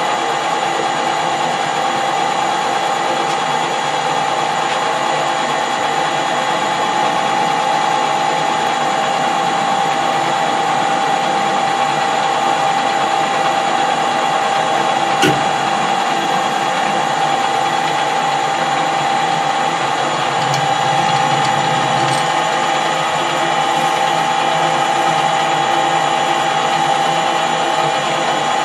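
Metal lathe running steadily with a constant gear whine, as a small steel part is machined. A single sharp click about fifteen seconds in.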